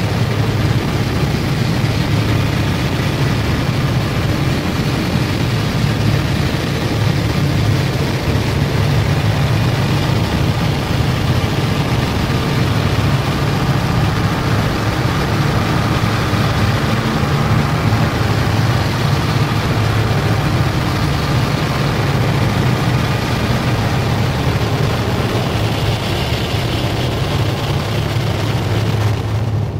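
Noise music: a dense, unbroken wall of static with a heavy low rumble underneath, steady throughout.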